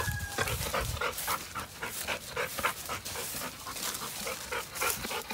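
A Labrador panting in quick, rhythmic breaths, about four to five a second.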